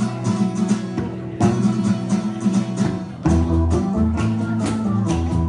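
A live rock band playing an instrumental passage, with guitars, bass and drums.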